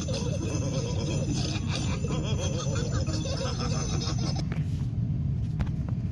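Cartoon characters laughing together over light background music; near the end a new piece of music begins.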